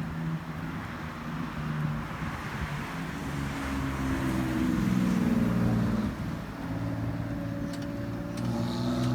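A car engine running, its pitch rising to a peak about five seconds in and dropping back about a second later.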